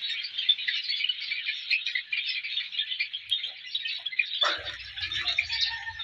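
A flock of Java sparrows chattering, a dense, unbroken stream of short overlapping chirps. A brief low rustle comes about four and a half seconds in.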